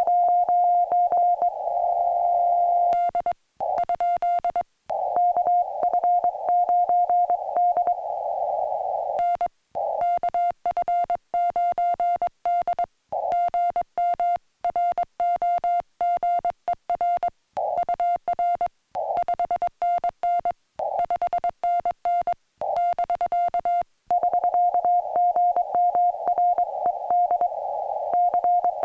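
Morse code (CW) from a portable ham radio transceiver: a single high beep near 700 Hz keyed on and off in dots and dashes, with brief silent gaps between characters.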